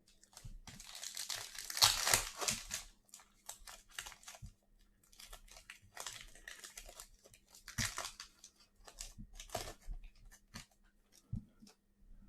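Plastic trading card pack wrapper crinkling and tearing as it is ripped open and handled, in two main stretches of rustling with small clicks between.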